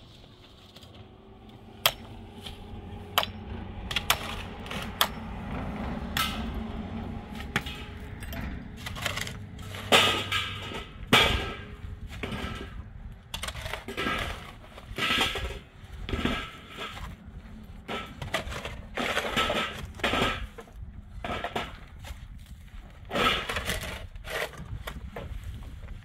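Block-laying work: hand tools knocking and scraping on mortar and concrete blocks. A few sharp knocks come early over a low hum, then a steady series of scrapes and knocks, about one every second or so.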